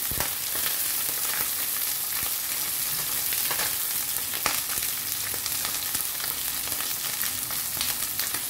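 Pieces of beltfish sizzling steadily in hot oil in a pan, being fried until crispy. Metal tongs turning the pieces add scattered clicks and scrapes, the sharpest about four and a half seconds in.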